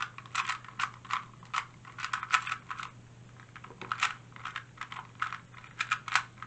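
2x2 speed cube being turned rapidly during a timed solve: quick, irregular clicks and clacks of the plastic layers, several a second in bursts, with a short pause about three seconds in.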